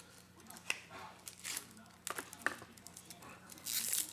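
Trading-card pack wrapper being crinkled and torn open, with scattered light clicks from handling the pack and cards, and a denser burst of crinkling near the end.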